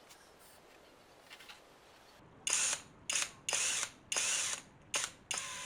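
Caulking gun being squeezed to push silicone sealant out of the tube: about six short mechanical bursts in quick succession, starting a couple of seconds in.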